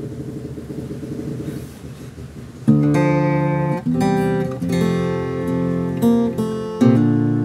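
Cort SFX Dao Nat acoustic-electric guitar being played: quiet at first, then a loud chord about two and a half seconds in, followed by a run of ringing chords, with another strong chord near the end.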